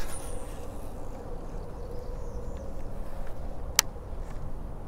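Steady low wind noise on the microphone while a fishing rod is cast at the start, followed by one sharp click a little before the end.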